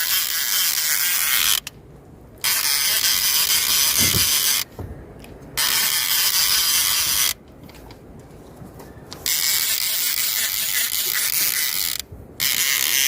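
Fishing reel being cranked to bring in a line thought to be snagged: a steady ratcheting whirr of the reel's gears in spells, with four brief pauses about 2, 5, 8 and 12 seconds in.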